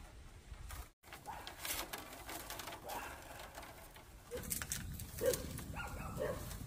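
A few short animal calls, several in the second half, over scattered light clicks and knocks.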